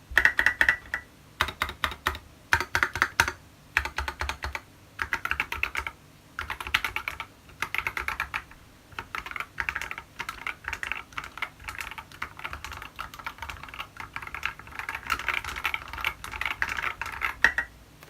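Typing on a TX65 mechanical keyboard with tall SA-profile keycaps and lubed Tealios linear switches. The keystrokes come in quick runs with short pauses between them.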